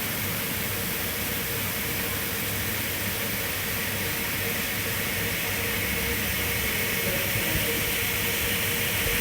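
Steady outdoor rushing noise: an even hiss with a low, unsteady rumble underneath and no distinct events.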